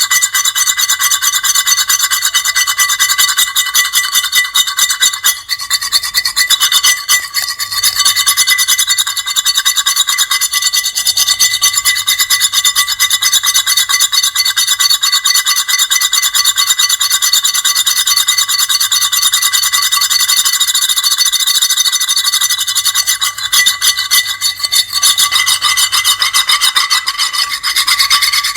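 Loud, grating high-pitched scraping, fast and unbroken, with a shrill squealing edge. It eases briefly about six seconds in and again around twenty-four seconds in.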